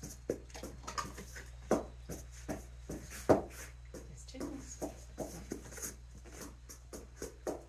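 Scattered light clicks and rustles from hands handling dog training treats, the loudest about 1.7 and 3.3 seconds in, over a steady low hum.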